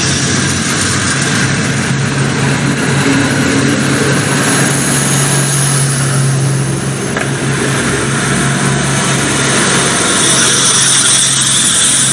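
Regional diesel train pulling out and passing close by: a diesel railcar's engine running steadily under power, with the rolling noise of the coaches on the rails.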